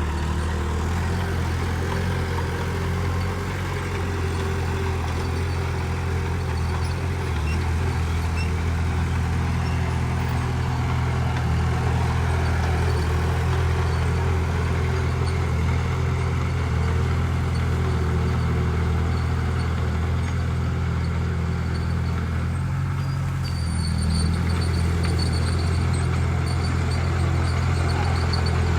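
Heavy diesel engine of earthmoving machinery running steadily with a deep, even hum; its note shifts briefly about three-quarters of the way through.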